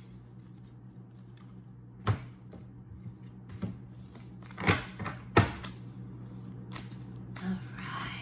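An oracle card deck being shuffled and handled: several sharp card snaps and taps, spaced about a second apart, over a steady low hum.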